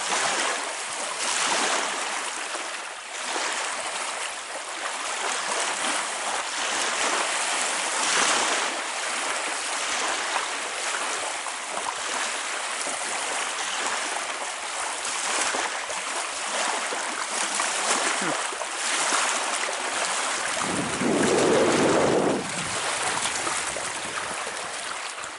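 Wind-driven waves lapping and breaking along a lakeshore, with wind rushing over the microphone in gusts. Near the end a brief, louder low rumble of wind buffeting the microphone.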